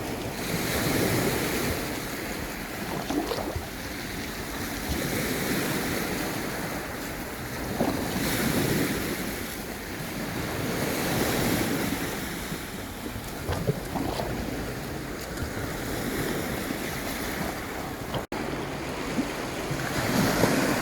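Black Sea waves breaking on the shore, the surf swelling and fading every few seconds, with wind buffeting the microphone.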